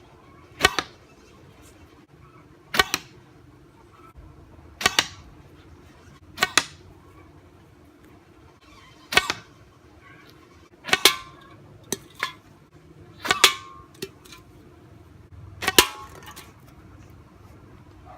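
Blow darts shot one after another from a half-inch PVC pipe: about ten sharp pops, roughly one to two seconds apart, several followed at once by a second knock.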